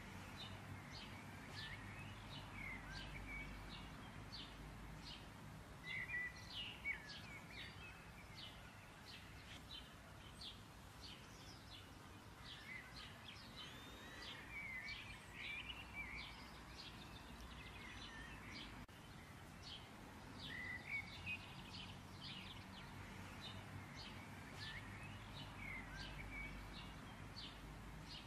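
Small birds chirping, with many short, quick calls scattered throughout, over a faint steady low hum.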